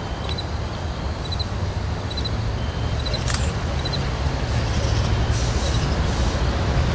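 Low rumble of an approaching CSX freight train's diesel-electric locomotive, growing steadily louder as it nears.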